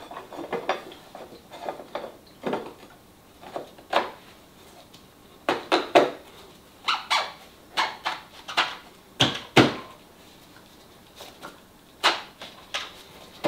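Irregular clicks and knocks of hands fitting the fuel module, its gasket and retaining nut into a motorcycle fuel tank, coming in short clusters of sharp taps.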